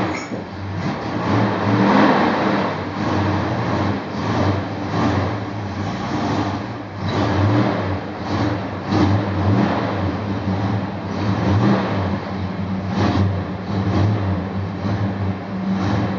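1969 Dodge Super Bee's V8 engine running, the engine note swelling and easing repeatedly as the throttle is worked. The carburettor is one the owner says needs rebuilding.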